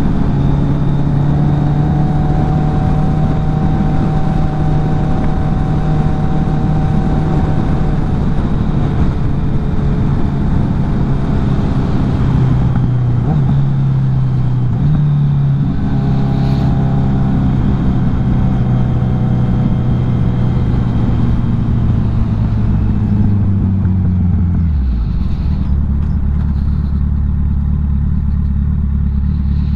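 Kawasaki Z900 inline-four engine running at steady revs under way, with a brief dip and pick-up in revs about halfway through. Near the end the revs ease down as the bike slows and settle into a steady low idle for the last few seconds.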